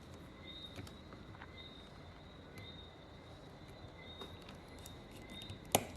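Faint small clicks of a precision screwdriver and tiny screw being worked into a phone frame, with one sharper click near the end. A faint high chirp repeats about once a second behind it.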